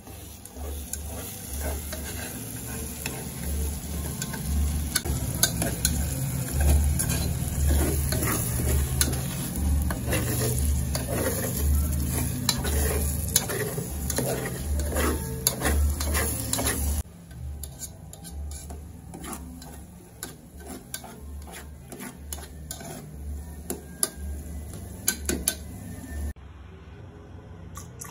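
A metal spoon stirring and scraping egg sauce in an aluminium pot, with many small irregular clicks of spoon on metal over the sizzle of the frying sauce. The sound gets quieter about two-thirds of the way through.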